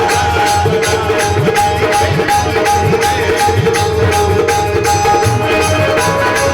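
Live Indian folk music without singing: a hand drum plays bass strokes that bend in pitch, jingling percussion keeps a quick steady beat, and organ-like notes are held underneath.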